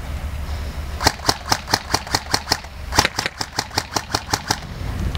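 Airsoft rifle firing two quick strings of shots, about five shots a second, with a short pause between the strings.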